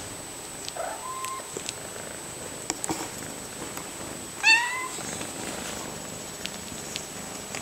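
Domestic cats purring as the mother nurses her newborn kittens, with a short faint rising mew about a second in and a louder, high rising mew about four and a half seconds in.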